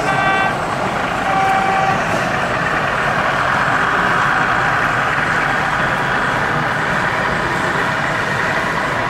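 Sound-fitted model diesel locomotive playing a steady diesel engine sound as it runs, with two short horn notes in the first two seconds.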